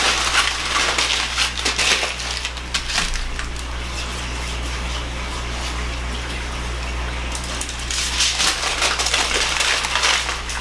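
Aluminium foil crinkling and rustling as a baking potato is wrapped in it by hand, in two spells: one at the start and another from about two-thirds of the way in, quieter between. A steady low hum runs underneath.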